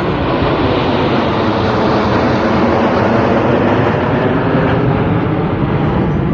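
Loud, steady engine noise of jet aircraft flying past overhead, swelling a little about halfway through.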